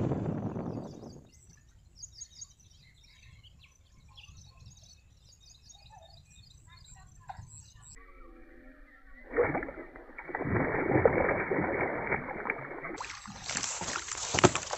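Small birds chirping over a quiet background, then water splashing and sloshing as a hooked fish is played and lifted out of the water, with a few sharp knocks near the end.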